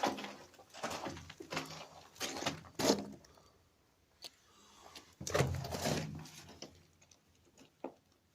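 Footsteps scuffing on the floor of an underground tunnel, about one step every two-thirds of a second for the first three seconds, then a louder scraping rustle about five seconds in and a few faint clicks near the end.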